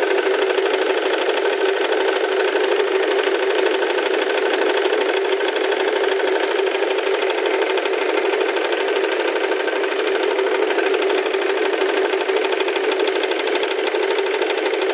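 Ford Mondeo Mk3 2.0 TDCi four-cylinder diesel engine idling steadily with a rapid rattling knock, which the owner suspects comes from the crankshaft pulley.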